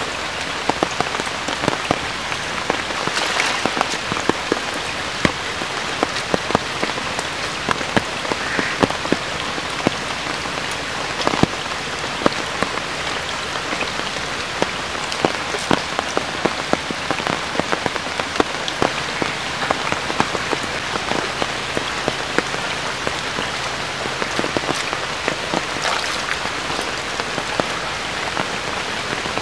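Rain falling steadily on shallow muddy water, with many small drop impacts.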